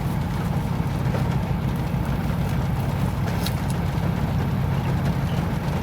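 Steady low rumble of a car heard from inside its cabin, with a faint click about three and a half seconds in.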